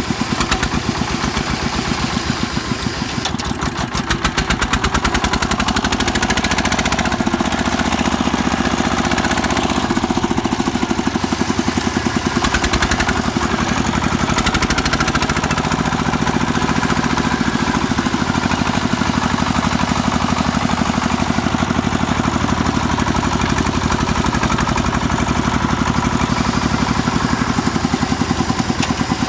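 Công nông farm truck's single-cylinder diesel engine chugging steadily, a rapid, even thumping.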